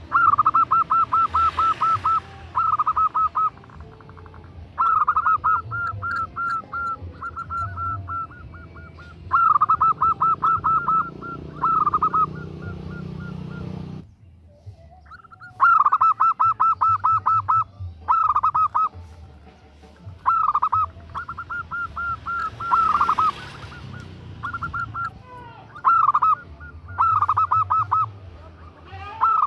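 Female zebra dove (perkutut) cooing in runs of rapid, short rolling notes, each run one to two seconds long and repeated after short pauses, with a brief gap about halfway through; the call a hen gives to draw a male.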